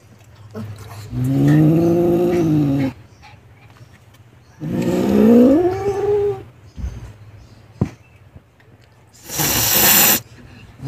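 Angry Siamese cat giving two long, drawn-out growling yowls, the first rising and falling, the second rising, then a sharp hiss near the end: an angry cat's warning.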